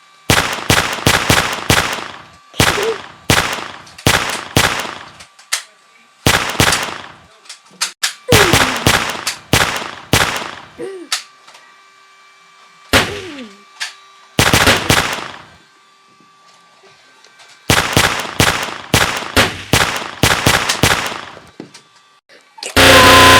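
Bursts of rapid, loud gunfire-like shots, several a second, in clusters broken by short pauses. Near the end a loud continuous sound cuts in.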